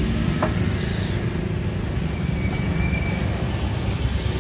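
Steady low rumble of passing road traffic, with a single light click about half a second in.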